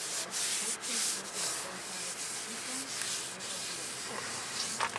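A paper towel soaked in brake cleaner rubbing back and forth across the face of a new brake rotor, wiping off the machining oil it came coated with.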